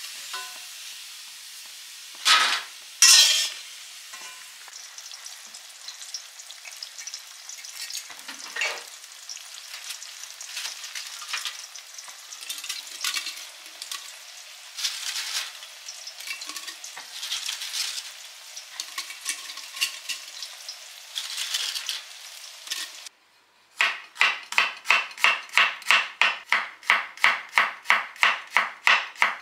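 Crackers sizzling as they fry in oil in a stainless steel pan, with a metal slotted turner scraping and clinking against the pan and two louder clanks about two and three seconds in. After a brief silence near the end, a chef's knife chops shallots on a wooden cutting board in quick, even strokes, about four a second.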